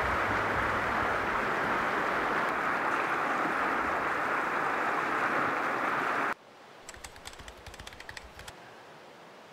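Fast river water rushing over rapids, a steady loud rush that cuts off abruptly a little past six seconds in. In the much quieter stretch after it comes a brief run of light crackling clicks.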